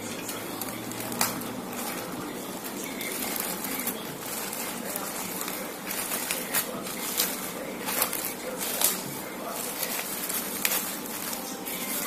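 Plastic courier mailer bag crinkling and rustling as it is torn open and handled by hand, with irregular sharp crackles, the loudest about a second in and several between about 6 and 9 seconds in.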